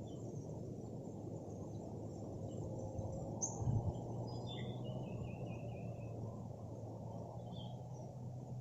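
Steady low rumble of outdoor background noise, with a brief thump a little over three seconds in and then a quick run of about six high chirps, each a little lower than the last.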